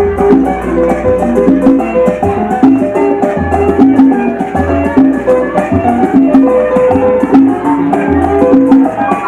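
Latin dance music played from a vinyl record: a steady percussion beat with shakers and drums over a repeating bass line and melody.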